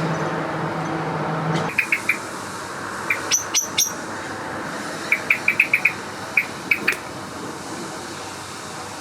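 A steady hum cuts off about two seconds in. Then come short, sharp bird call notes, singly and in quick runs of up to six, with a few clicks among them.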